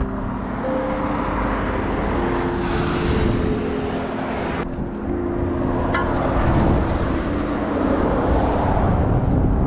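Background music with long held notes over a loud, steady rushing noise.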